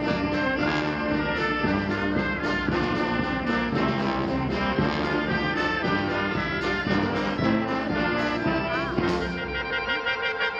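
Wind band of brass and woodwinds playing a symphonic march, with tubas and trombones underneath and trumpets on top. About nine and a half seconds in, the low brass drop out, leaving higher instruments holding notes.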